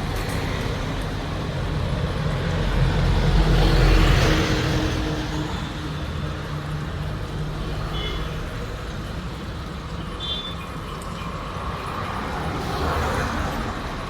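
Motor vehicle noise, swelling to a peak about four seconds in and easing off, with another smaller rise near the end.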